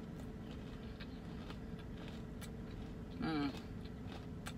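A person chewing crunchy fried chicken, with a few faint clicks over a steady low background hum, and a short hummed 'mm' a little over three seconds in.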